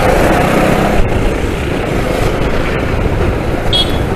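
Steady wind rush and engine noise from a Bajaj Avenger motorcycle on the move.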